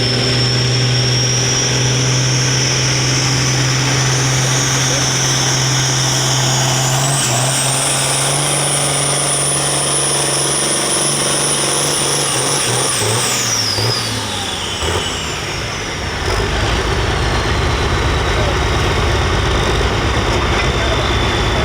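Diesel farm stock pulling tractor running hard under load, its steady engine note topped by a high whistle that climbs about a third of the way in, holds, then winds down about two-thirds through as the engine lets off. A low rumble fills the last part.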